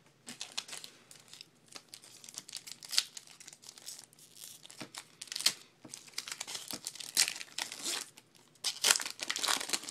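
Wrapper of a baseball card pack being torn open and crinkled, in irregular bursts of rustling with louder rips a few times.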